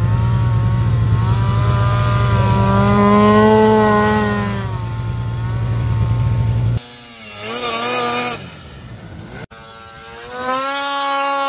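Polaris snowmobile's two-stroke engine revving as the sled is ridden through deep snow, its pitch rising and falling with the throttle. It is loud at first, drops away abruptly about seven seconds in, and then builds again near the end.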